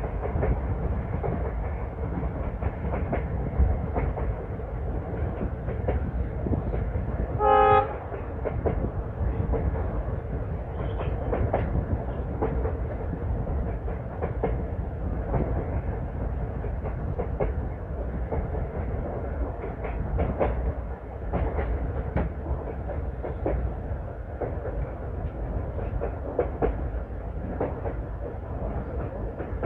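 Passenger train running along the track, heard from an open coach doorway: a steady rumble with the wheels clacking over the rail joints. The locomotive's horn gives one short blast about seven seconds in.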